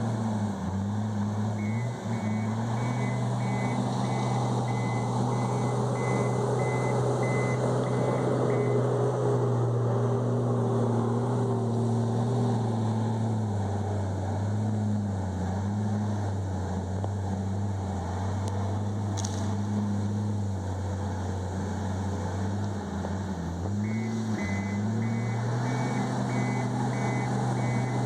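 Komatsu D51EX bulldozer's diesel engine running steadily, with its reversing alarm beeping in two spells: from about two to nine seconds in, and again near the end as the dozer backs up. The engine's pitch dips briefly shortly before the second spell of beeps.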